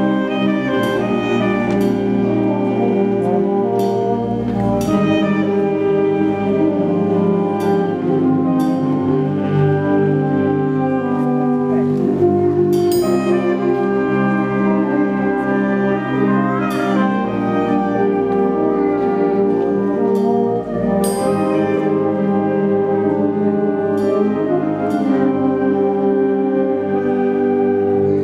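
Concert wind band playing a slow aria featuring the alto saxophone, over sustained brass and woodwind chords. Cymbals strike a couple of times, about 13 and 21 seconds in.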